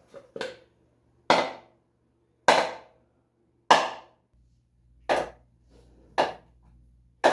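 Hammer blows on a hard surface: two light taps, then six heavy, evenly spaced strikes about one a second, each with a short ringing decay.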